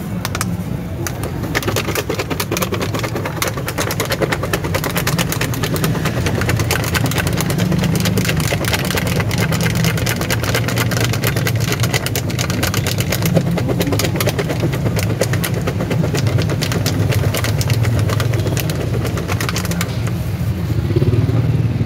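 Steady traffic and idling-engine noise from a busy street, with plastic crinkling close by as cut fruit is packed into a plastic bag by a gloved hand.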